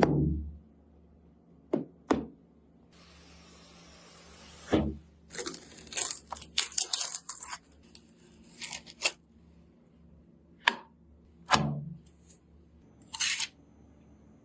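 Hands handling computer parts and their packaging: scattered knocks and clicks, a steady hiss for a second or two, and runs of rapid scratchy crinkling like plastic being torn or peeled.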